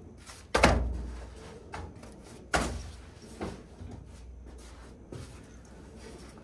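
Luggage being carried in and set down on a hard floor in a small room: two loud thumps about two seconds apart, the first the loudest, with a few lighter knocks between and after.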